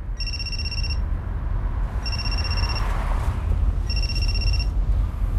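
Mobile phone ringing: a simple electronic ring tone that sounds three times, each ring under a second long and about two seconds apart, over the low rumble of a car's interior.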